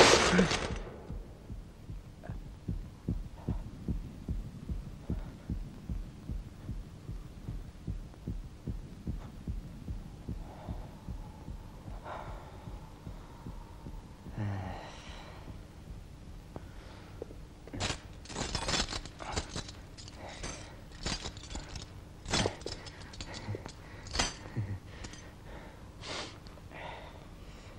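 Heartbeat sound effect, a low thumping at about two beats a second that fades out after ten seconds or so, following a loud sudden sound at the very start. Later comes a run of sharp clicks and cracks.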